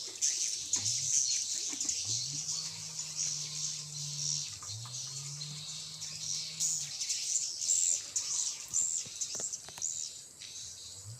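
Many edible-nest swiftlets twittering in a steady high chatter. Under it, a low droning tone slides up and holds for a second or two, several times over. It is the unidentified strange sound the uploader asks listeners to name.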